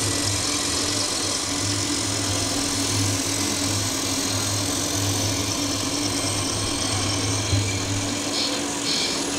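Radio-controlled scale turntable-ladder fire engine: a steady engine-like hum with a small motor whirring as its ladder lowers and swings, over the broad noise of a busy exhibition hall. Two short high beeps come near the end.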